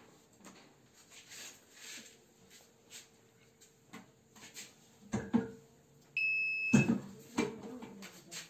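Table-top electric chapati press at work. Light taps of dough on the steel plates and a metal clunk of the press come first. A half-second electronic beep follows, then a loud metal clunk and a second clunk soon after as the press is opened.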